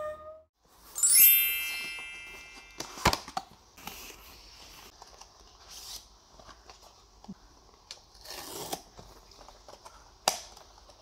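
A bright sparkling chime rings about a second in and fades away. It is followed by small cardboard boxes being handled and opened: a few sharp clicks of card, and a short tearing rustle of packaging near the end.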